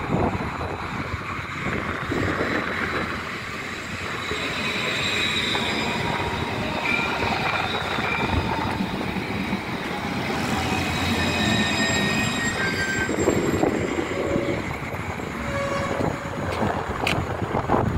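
Electric tram running past on its rails: a steady rush of wheel and track noise, with thin high whines, some sliding down in pitch, through the middle of the passage.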